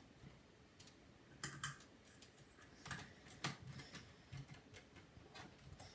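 Scattered light clicks and taps of a precision screwdriver driving small mounting screws into a laptop's hard drive bracket.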